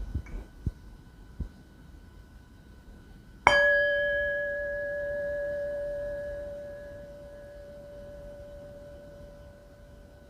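A few soft taps and clicks, then a singing bowl struck once about three and a half seconds in, ringing with a clear tone and overtones that slowly fade over several seconds.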